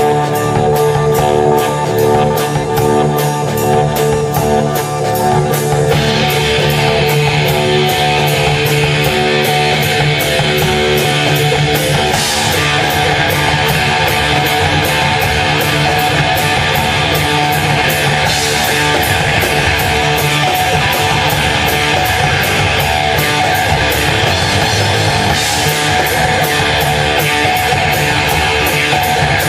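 Live rock band playing a heavy number: electric guitar over a drum kit keeping a steady beat. The sound fills out with cymbals about six seconds in, with a few cymbal crashes later on.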